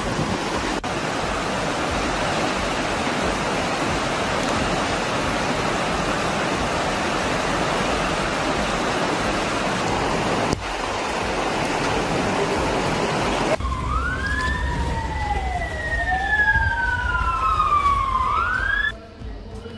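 Steady rushing of a flooded stream, then, about two-thirds of the way in, an emergency-vehicle siren wailing, its pitch sweeping slowly up and down. The siren cuts off abruptly just before the end.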